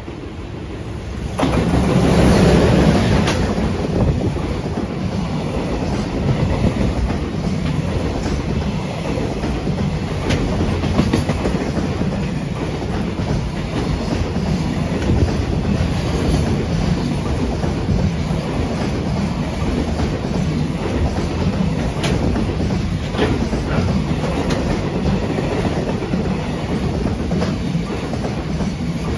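A freight train hauled by an electric locomotive passes close by. The locomotive arrives suddenly about a second and a half in and is loudest just after, followed by a long string of freight wagons rumbling past with their wheels clacking over the rail joints.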